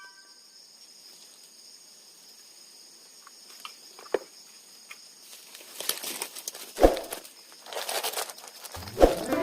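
Insects trilling steadily in a high pitch, like crickets in the background; from about halfway, irregular rustling and crinkling, like something being handled, with a single thump about seven seconds in.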